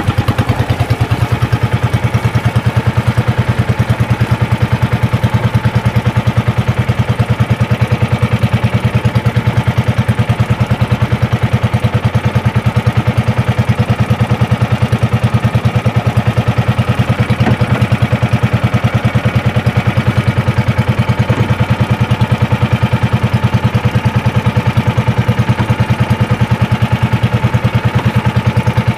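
Small boat's engine running steadily under way, with a rapid, even pulsing beat that does not change in speed.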